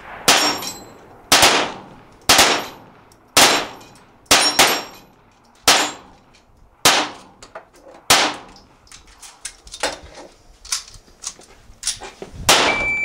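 A run of .22LR gunshots, roughly one a second, with the steel paddles of a dueling tree target ringing on the hits. Lighter, quicker cracks come in the last few seconds.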